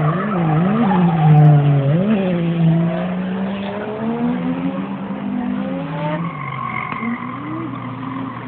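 Drift car's engine revving hard as it slides, its pitch swinging up and down several times in the first two seconds with quick throttle blips, then held steadier and climbing slowly, with tyres squealing through the slide.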